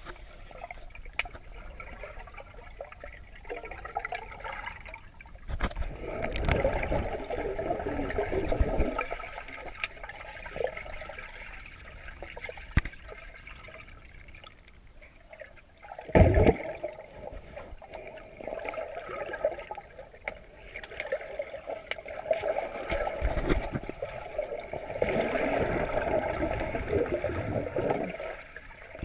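Water gurgling and bubbling as heard by a camera held underwater in a swimming pool, muffled and swelling in a few surges, with a sharp thump about sixteen seconds in.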